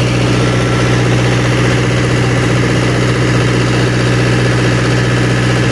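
Engine idling with a steady, unchanging low drone.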